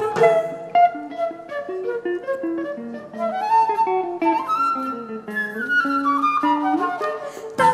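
Live instrumental jazz played by a small band: a stepping melody line over plucked guitar accompaniment.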